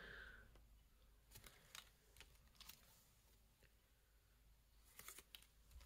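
Near silence with a few faint, short clicks: small cardstock ephemera pieces being handled and picked up by hand.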